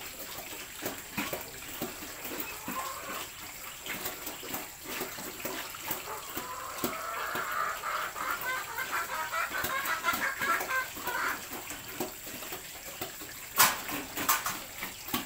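Farmyard animal sounds: a run of short, high, chirping calls in the middle, over scattered clicks and knocks, with one sharp knock near the end.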